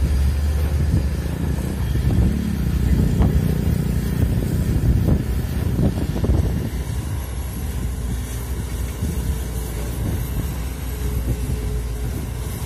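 Komatsu PC200 hydraulic excavator's diesel engine running under load as the bucket digs into wet soil, then lifts with the boom raised. A steady low rumble, heavier in the first half and easing slightly later, with short irregular surges.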